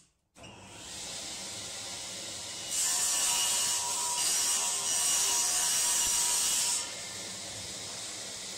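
Table saw starting up and running, then its blade cutting a groove along a plywood panel for about four seconds, louder with a high hiss, before the saw runs free again.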